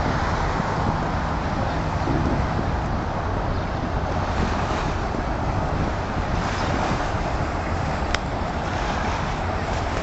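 Steady wind buffeting the microphone, a dense rushing noise heaviest in the low end.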